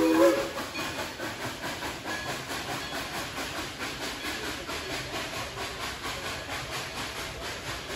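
The steam locomotive's whistle cuts off just after the start. Then comes a steady hiss of steam with an even, rhythmic rolling as the passenger cars pass.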